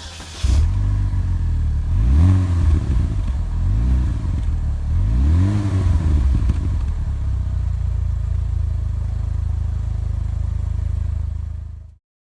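Chevrolet HHR SS turbocharged four-cylinder exhaust, fitted with an aftermarket downpipe, revved three times, about two, four and five and a half seconds in, each rev rising and falling. It then idles steadily until the sound cuts off near the end.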